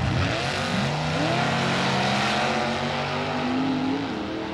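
Two drag-racing cars, a 1930s coupe and a dragster, launching off the line and accelerating hard down the strip. Their engine pitch rises in several steps as they pull away, and the sound begins to fade near the end.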